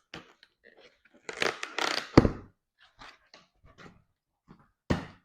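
Cardboard carton being opened and handled: rustling and scraping of the flaps and packing, with a thud about two seconds in and a sharp knock near the end.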